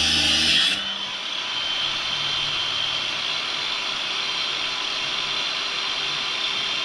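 Makita power tool running steadily at full speed, cutting metal: the mounting tabs being cut off to clear the roll cage.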